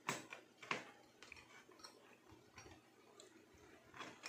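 Faint clicks and taps of fingers handling the wires and metal contact terminal inside an opened bread toaster. There is a sharp click at the start, another just under a second in, and one near the end, with softer ticks between.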